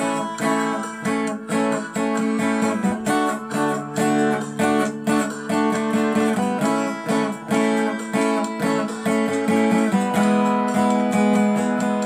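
Instrumental song introduction led by a strummed acoustic guitar, with a steady beat of about two strums a second, before the vocal comes in.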